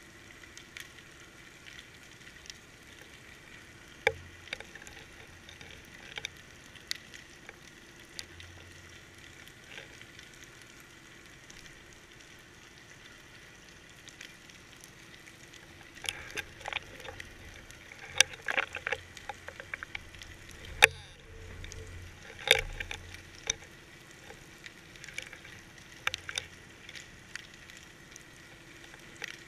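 Scattered sharp clicks and crackles heard underwater through a GoPro's waterproof housing, over a faint steady hiss and hum. The clicks come thickest in a burst through the middle.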